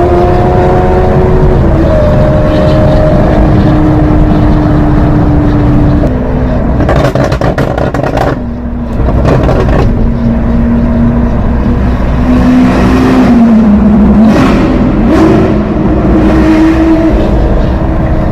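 Lamborghini Aventador SV's V12 through a Capristo exhaust, running at moderate revs. The engine note steps down and up in pitch several times, with a burst of exhaust crackles about seven seconds in and a brief drop in loudness just after.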